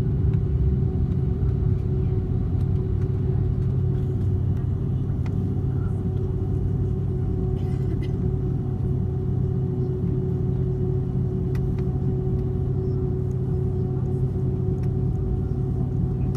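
Jet airliner's cabin noise while taxiing: a steady low rumble with a constant engine hum from the engines at idle, heard from inside the cabin.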